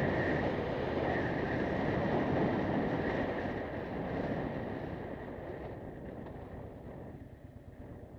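Wind rushing over the microphone of a moving motorcycle, mixed with engine and road noise. The sound grows steadily quieter over the last few seconds.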